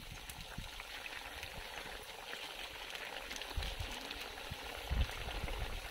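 Chicken pieces cooking in a kadhai, a steady sizzling and bubbling in their own juices. Two dull low thumps come about three and a half and five seconds in.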